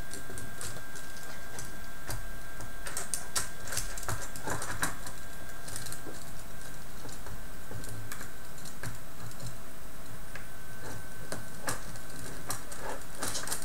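Plastic tank treads of a DFRobotShop Rover kit clicking and rattling in irregular light taps as they are stretched and worked onto the plastic sprockets and wheels.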